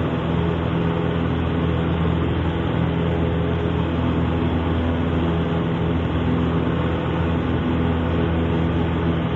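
Piper Super Cub's engine and propeller droning steadily in flight, an even hum with no change in pitch or level.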